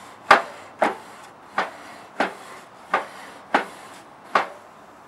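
Grill brush scraping back and forth across a charcoal grill's metal grate to clean it: about seven sharp rasping strokes, roughly one every two-thirds of a second.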